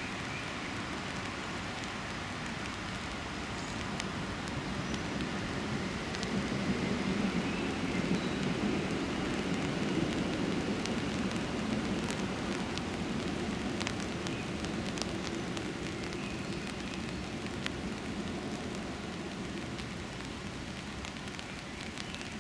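Steady outdoor rain falling, with scattered drops ticking, and a low rumble that swells for a few seconds in the middle.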